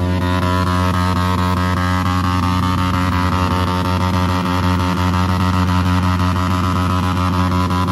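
Motorcycle engine held at steady high revs, one unchanging drone with a rough edge.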